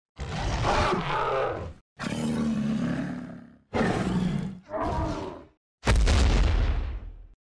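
A string of about five dinosaur roar sound effects, each lasting a second or so, with abrupt silent gaps between them.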